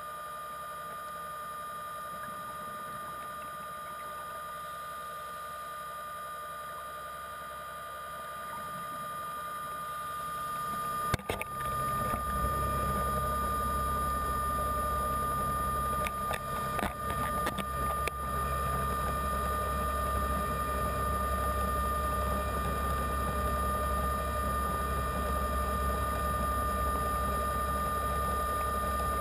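Underwater recording of a diver propulsion vehicle's electric motor running with a steady whine and hum. About 11 seconds in there is a sharp click and the motor sound steps up, louder and deeper, with a few more clicks a few seconds later.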